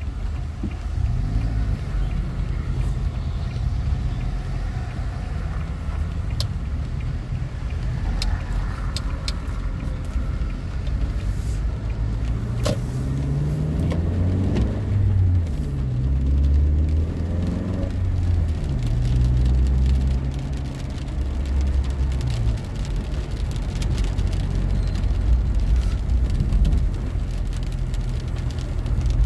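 Car engine and road rumble heard from inside the cabin as the car moves off in traffic on a wet road. About midway the engine note climbs twice as the car speeds up, with a few sharp clicks along the way.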